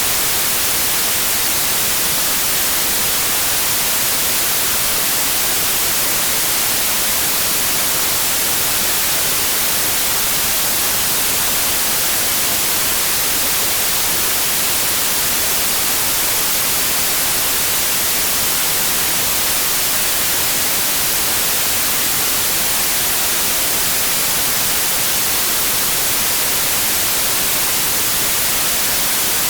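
Steady white noise: an even, unchanging hiss, strongest in the highs, with no motor hum or other tones in it.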